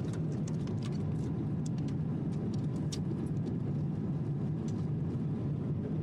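Steady drone of an airliner cabin in flight: engine and airflow noise, low and even, with a few faint light clicks over it.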